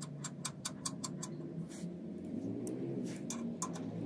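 Socket ratchet clicking as the oil drain plug of a Cub Cadet Stage 3 snow thrower is screwed back in: a quick run of about six or seven clicks a second, a pause, then a few more clicks near the end.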